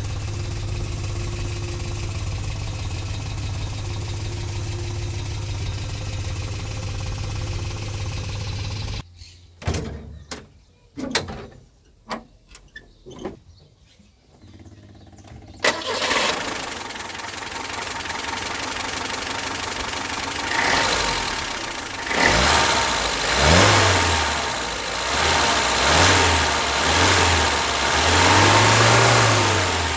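Peugeot 204's four-cylinder engine idling steadily. It is broken off by several sharp clicks, then comes back suddenly running. In the last several seconds it is revved about five times, the pitch rising and falling with each rev.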